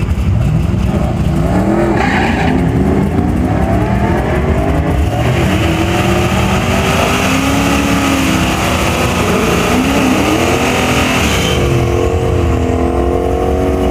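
Supercharged 5.4-litre V8 of a Ford SVT Lightning pickup, with a Whipple supercharger, and a second car accelerating hard down a drag strip. The engine note climbs and drops back at each of several upshifts. Near the end a steadier, wavering engine note is heard.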